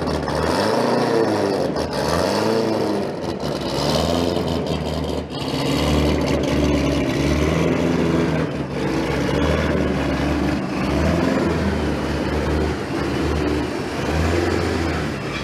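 Supercharged Corvette Stingray V8 revving: a couple of quick revs rising and falling in pitch in the first few seconds, then loud running that swells and drops again and again.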